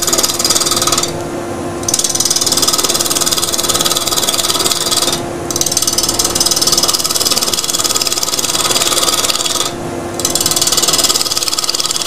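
Gouge roughing down an uneven, off-centre dry laburnum log spinning on a wood lathe: a continuous rough shaving and chattering noise that breaks off briefly three times as the tool leaves the wood, over a steady hum from the running lathe and dust extractor.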